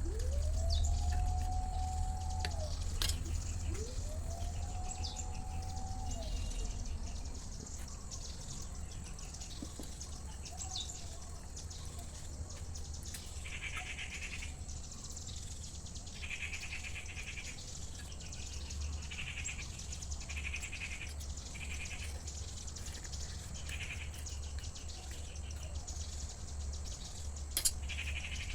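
Two long animal calls in the first six seconds, each rising in pitch and then held, followed by repeated short bursts of high chirping, over a steady low rumble.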